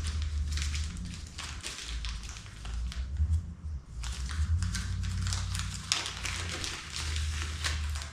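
Handling of tools and packaging while unboxing: irregular rustling, crinkling and light taps, over a low hum.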